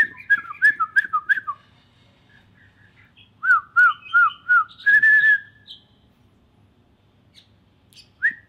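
A man whistling through pursed lips: a quick run of short swooping notes, then four more, a held note, and one last note near the end.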